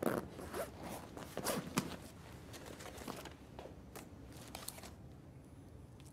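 Handling noises from a bundle of paper banknotes being opened and handled: a string of soft, irregular rustles and clicks that die away about five seconds in.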